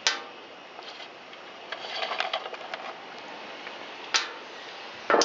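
Hand-tool work on a small engine's screws: sharp metallic clicks and a brief rattling scrape as Allen screws are turned out by hand and handled, with a sharp click at the start and another about four seconds in.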